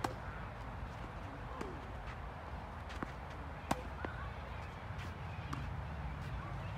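Tennis ball being struck by racquets and bouncing on the court during a rally: a few sharp pops, the loudest about three and a half seconds in. Birds call faintly in the background.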